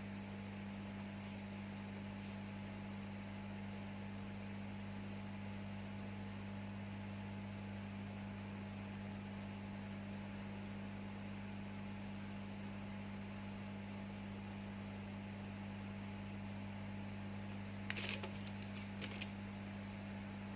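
Steady electrical mains hum, a low buzz that holds unchanged throughout. Near the end, a few light clicks.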